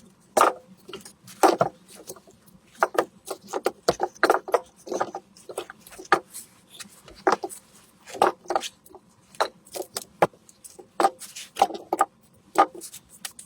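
Split firewood being handled and stacked: an irregular run of wooden knocks and clunks as logs are set down against one another.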